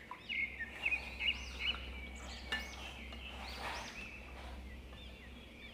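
Small birds chirping over and over in the background, with a few light clinks of a metal spoon against a glass bowl as chocolate sauce is stirred.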